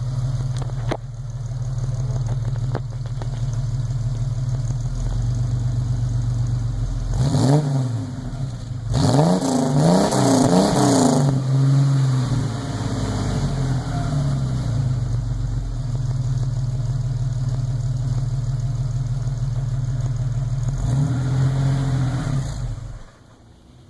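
Chevrolet Opala's freshly rebuilt 250 inline-six engine idling steadily and blipped on the throttle: one rev about seven seconds in, a run of quick revs about nine to eleven seconds in, and another near the end. The engine sound then stops suddenly just before the end.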